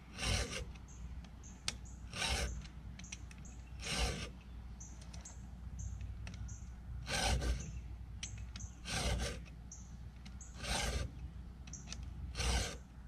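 STIHL 2-in-1 chain sharpener's round and flat files rasping across chainsaw chain teeth, filing cutter and depth gauge in one pass. There are seven strokes a second or two apart, with a longer gap near the middle.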